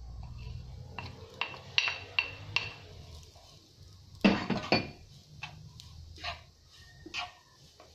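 Crockery and pan clatter: a ceramic plate clinks about five times with a short ring as grated carrot is tipped off it into a frying pan. About four seconds in comes a louder scraping clatter as a wooden spoon works the rice in the pan, followed by three single knocks.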